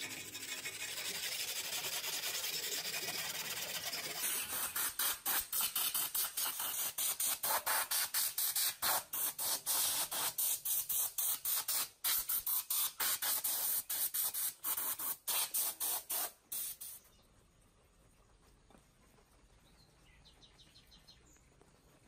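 Aerosol spray can hissing onto the rusted joints of an old ceiling fan. It gives a few seconds of steady spray, then a long run of short, quick bursts that stops about three quarters of the way through.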